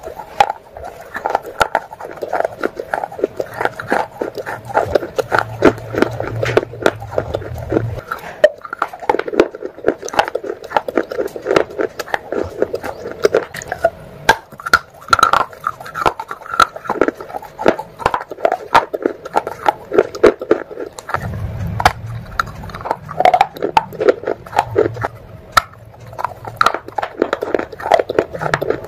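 Pieces of a wet baked clay pot being bitten and chewed: a dense, irregular run of sharp crunches and crackles.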